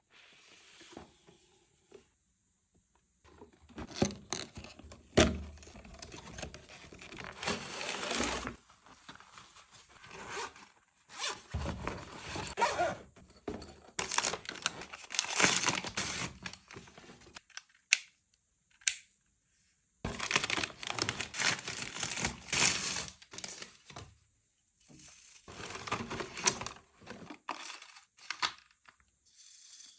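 Product packaging being torn open and crinkled by hand, in irregular bursts with sharp clicks and short pauses.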